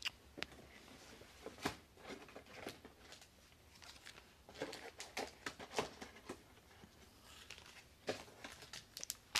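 Irregular light handling noises: scattered taps and clicks with some crinkling, as of things being moved about and set down on a table.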